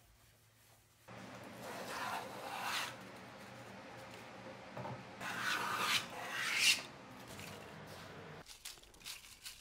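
Hand plane pushed along the edge of a wooden board twice, each stroke a rasping shave that peels off a long curled shaving; the second stroke is louder.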